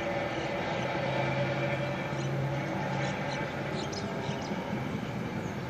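An eerie, steady droning creak made of several held low and middle tones, the kind of unexplained sound people call 'trumpets of Jericho' or the earth creaking, which the uploader takes for something man-made. A few faint short high chirps sound over it near the middle.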